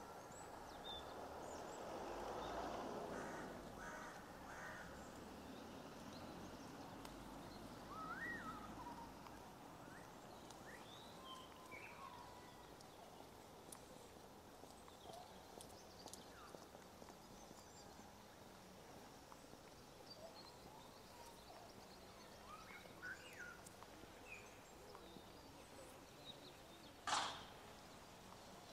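Faint outdoor ambience with a steady low hiss and scattered short bird calls, and one sharp knock near the end.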